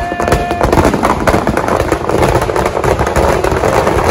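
Dense, rapid crackling and popping of firecrackers packed inside a burning Ravan effigy, with a short whistle in the first half second.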